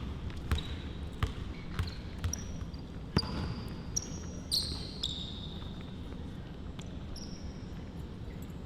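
A basketball being dribbled during a one-on-one game, several bounces in the first few seconds, with short high-pitched squeaks of sneakers on the court, most of them around the middle.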